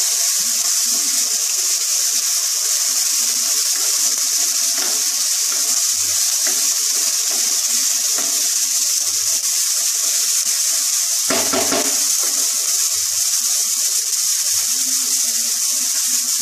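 Chopped carrot, green beans and capsicum sizzling steadily in oil in a nonstick pan, stirred and turned with a wooden spatula, with a brief louder scrape or knock about eleven seconds in.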